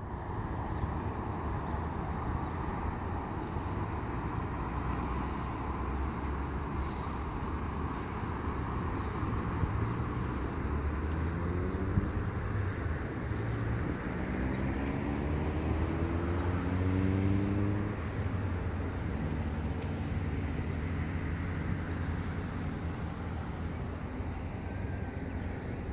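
Distant road traffic, a steady rumble. In the middle, one vehicle's engine rises in pitch several times as it accelerates through its gears.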